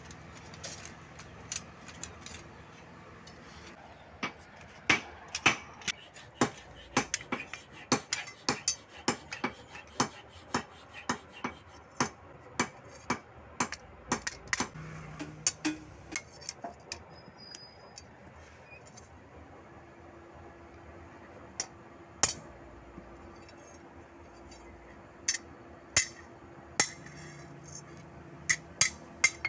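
Hand hammer striking metal as a bolo knife's handle is fitted, tapping the metal ferrule home on a steel post: sharp clinks in a quick run of about two a second, then a few single strikes near the end.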